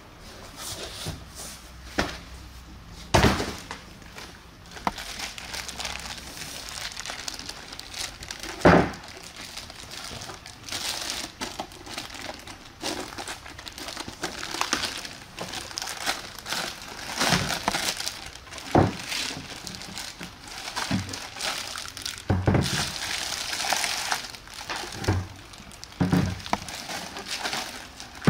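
Clear plastic bag crinkling as a car amplifier is worked out of its wrapping, with cardboard packaging handled. Several sharp thumps are spread through it, the loudest about nine seconds in.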